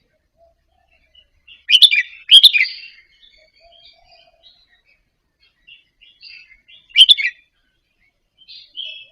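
Red-whiskered bulbul singing softly: short, sharp phrases, two close together about two seconds in and another about seven seconds in, with quiet twittering in between.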